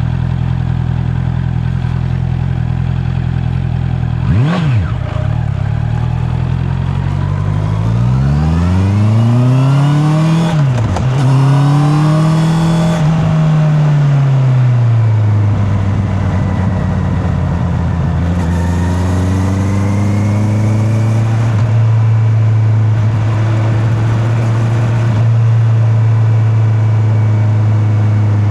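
Honda CB650R's inline-four engine, heard from a microphone in the rider's back pocket. It runs low and steady at first with one quick rev blip, then accelerates with the pitch rising and dropping at gear changes. It eases off and settles into a steady cruise, with another gentle pull partway through.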